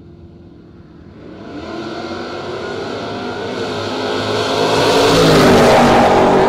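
Two drag-racing cars, a Chevy II Nova and a 1995 Mustang, launching off the line about a second in and accelerating hard down the strip at full throttle. The engine sound rises in pitch and grows steadily louder toward the end.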